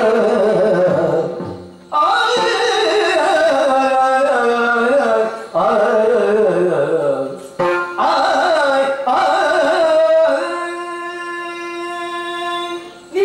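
Yakshagana bhagavata singing a verse in the Carnatic-style manner, several phrases with bending pitch separated by short breaks. In the last few seconds only a steady held tone remains, quieter.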